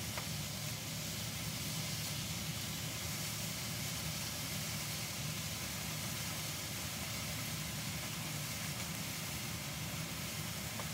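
Steady hum and hiss of a kitchen range-hood fan running over a gas hob, with food frying in a pan as it is stirred.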